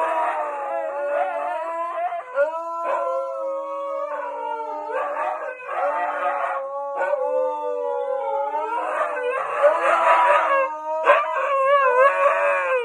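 Two huskies howling together: long wavering howls that glide up and down in pitch, their voices overlapping.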